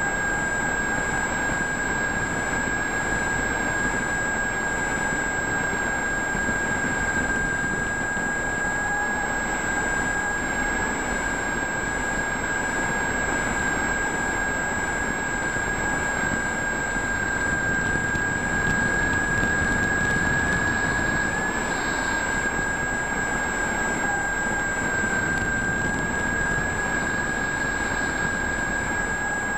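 Multiplex FunCub model airplane's electric motor and propeller in steady cruise: a high whine held almost at one pitch over a constant rush of air, heard from a camera on the airframe.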